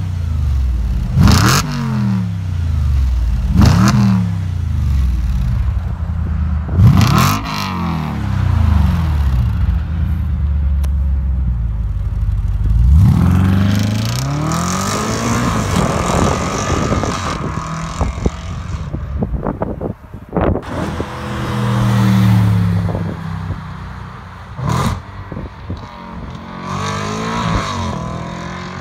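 Audi RS4 B8's 4.2-litre V8 through a custom straight-pipe exhaust with the flaps open: revved at standstill in three or four short blips, each with a sharp crack. About 13 seconds in it launches hard and pulls away through the gears, fading as it goes.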